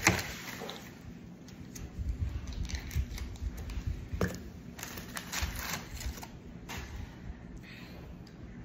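Paper wrapping and a paper bag rustling and crinkling as they are handled, with scattered clicks and low bumps; a sharp click at the very start and another about four seconds in.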